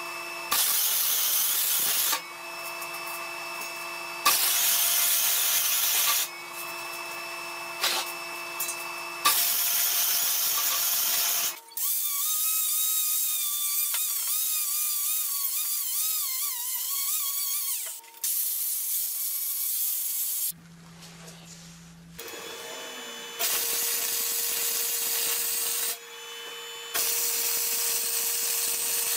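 MIG wire-feed welder arc crackling and hissing while laying weld beads on square steel tubing, in repeated runs of a few seconds separated by short pauses.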